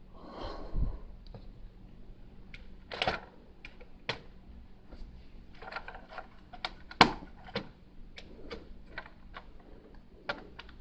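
Plastic Lego bricks clicking and tapping as pieces are handled and snapped together: a run of irregular sharp clicks, the loudest about seven seconds in.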